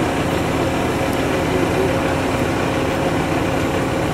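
Heavy diesel engine of a truck-mounted crane running steadily, a constant drone with a held tone while the crane holds its load.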